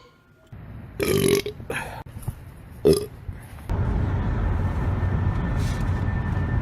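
A man burping, short loud burps about a second in, near two seconds and near three seconds. From a little past halfway, the steady low rumble of the car running takes over.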